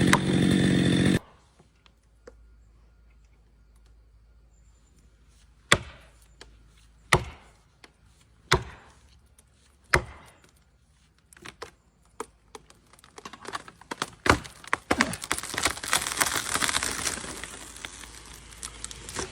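A chainsaw running, then cutting off about a second in. After a pause come four sharp wooden knocks about a second and a half apart. Then cracking and splintering of wood builds into a dense crash near the end as the felled tree gives way and comes down.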